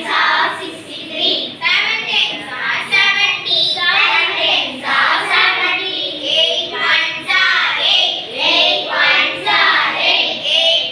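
Children chanting a multiplication table in a sing-song recitation, one phrase about every second without a break.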